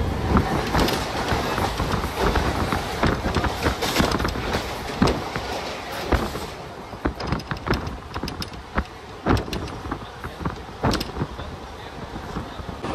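Mumbai suburban local train noise: a steady rumble with irregular clattering and knocks, most crowded in the first half and sparser, sharper knocks in the second.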